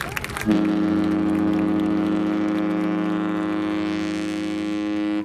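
The Celebrity Millennium cruise ship's horn sounds one long, steady blast as the ship departs. The blast is a low chord of two main tones with many overtones. It starts about half a second in and cuts off sharply just before the end.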